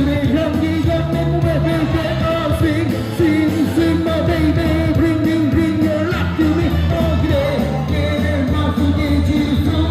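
Pop music with a singing voice over a steady bass line.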